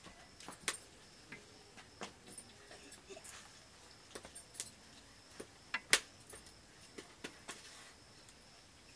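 Scattered light clinks and taps of steel plates and cooking utensils, with a sharper pair about six seconds in.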